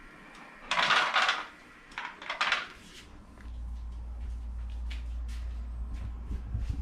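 Dry kibble poured into the plastic hopper of an automatic pet feeder, rattling in two short pours about a second apart. A low steady hum and a few faint clicks follow.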